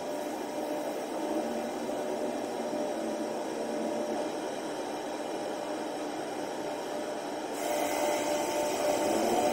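Steady drone of a ferry's machinery heard from inside the ship, a hum of several steady tones over a noise haze. Near the end a hiss comes in and the sound grows louder.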